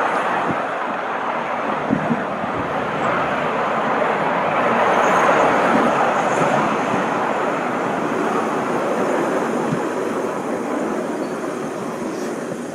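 Miniature railway train running along the track, heard from on board the rear carriage: a steady running noise of the wheels on the rails, with a few sharp clicks as the wheels pass over rail joints.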